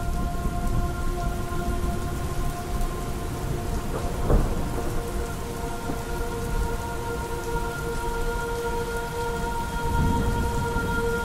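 Recorded rain and rolling thunder under a sustained chord of held tones, the performance's soundtrack; a rumble swells about four seconds in and again near the end.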